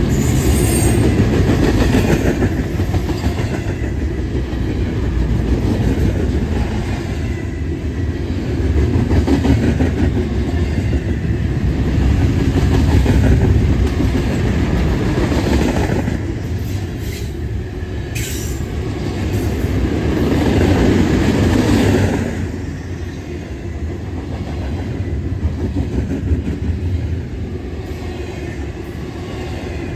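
Double-stack intermodal well cars of a Norfolk Southern freight train rolling past: a loud, continuous rumble of steel wheels on rail that swells and eases every few seconds as the cars go by.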